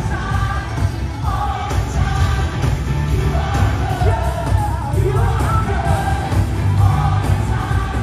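Live amplified gospel music in a large arena, heard from the stands: a band with heavy bass under singing voices, with crowd voices mixed in.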